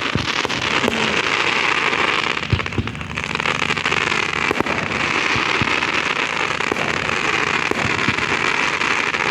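Crackling fireworks: a dense, continuous fizz of many tiny pops, with a brief lull about three seconds in.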